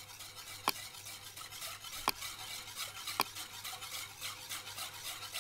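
A whisk beating milk into a roux in a stainless steel pot, a rapid, even scraping of several strokes a second. Three sharper clinks of metal on the pot sound about a second apart in the first half.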